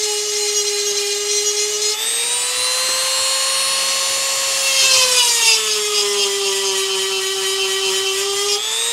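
EzzDoo rotary tool spinning a diamond bit against a chainsaw cutter tooth, sharpening it under very light pressure. It makes a steady high whine that rises a little in pitch about two seconds in and sinks again around six seconds in, with a brief rasp of grinding near five seconds.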